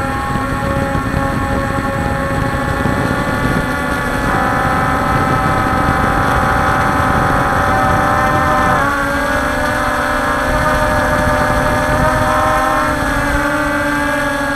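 Quadcopter drone's motors and propellers humming, the pitch of the hum shifting in steps as the drone manoeuvres, with a quick dip and recovery near the middle. Wind rumble on the microphone lies underneath.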